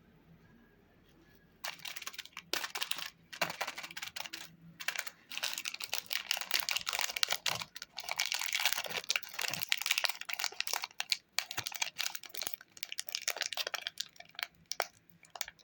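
Close-up crisp crackling and crinkling of candy being handled, starting about a second and a half in and running as a dense, irregular stream of small clicks with brief pauses.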